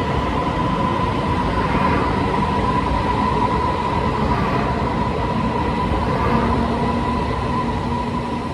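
Taiwan Railways electric train running at a station platform: a steady rumble with a constant high hum, and a low tone joining about six seconds in.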